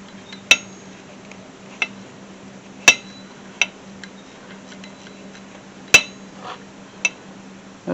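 Hand tools clinking against metal: six sharp, irregularly spaced metallic clinks, some with a short ring.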